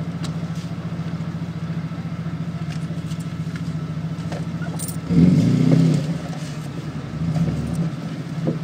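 Car engine idling with a steady, even pulse, then briefly louder about five seconds in as the car moves off, with a smaller rise near the end.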